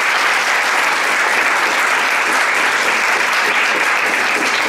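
Audience applauding steadily, a dense even clapping from a roomful of people.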